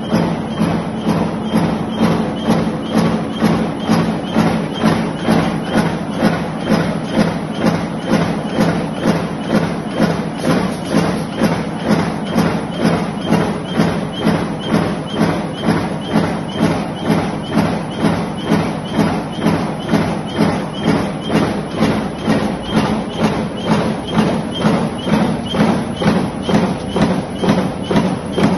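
Mechanical power press running continuously with a mechanical gripper feeder pulling steel strip into the die: a steady rhythm of press strokes, roughly two a second, over a constant motor hum.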